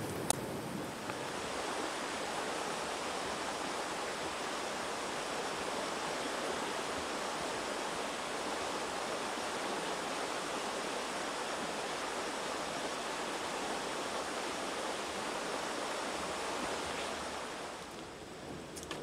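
A steady rushing hiss with no distinct clicks or knocks, fading down near the end.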